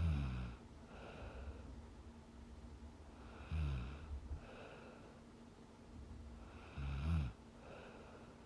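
A young woman snoring in her sleep: three loud snores about three and a half seconds apart, each followed by a softer breath.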